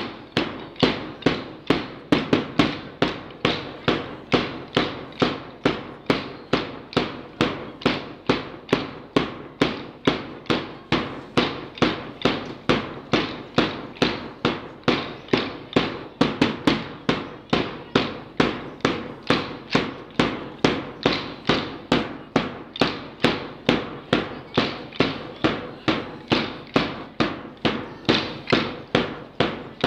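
Many hand dumbbells struck together in unison by a large group in a drill, a sharp clack about twice a second in a steady beat.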